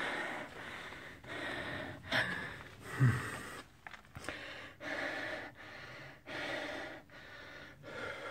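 A person breathing hard close to the microphone, in quick, even breaths. A brief low vocal sound falls in pitch about two and three seconds in.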